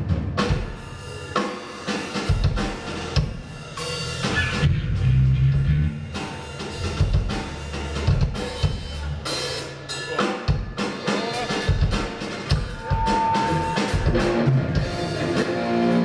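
Rock drum kit played in loose, uneven hits and short fills during a band sound check, kick and snare drum strokes with low bass notes underneath. Near the end a short held tone sounds.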